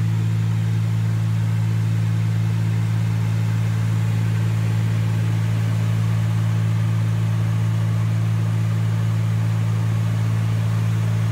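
Cessna 310Q's twin piston engines and propellers running steadily at a constant power setting, heard from inside the cabin as an even, low hum with no change in pitch.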